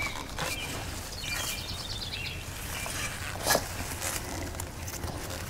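Shovel work in soft, mulched garden soil, with one sharp knock about three and a half seconds in. A bird gives a short run of quick chirps about a second in.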